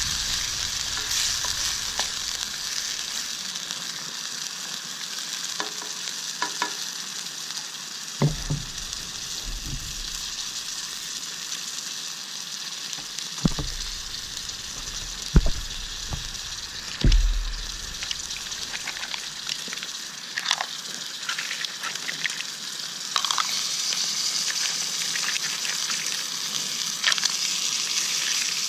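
Food sizzling steadily in hot oil in a pan, with a few dull knocks about 8, 13, 15 and 17 seconds in.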